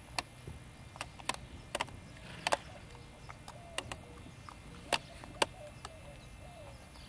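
A Doberman puppy's toenails clicking and tapping on a hard surface as she shifts about: about a dozen sharp, irregular clicks.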